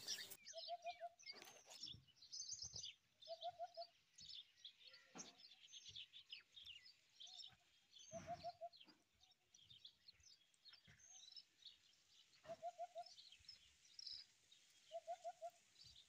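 Faint birdsong: small birds chirping and twittering, with a lower call of three or four quick notes repeated every few seconds.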